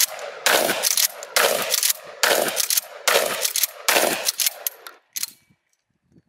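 Remington 870 Marine 12-gauge pump-action shotgun firing 00 buckshot, five loud shots in quick succession about a second apart, each followed by a brief ringing tail. A fainter sharp sound comes about five seconds in.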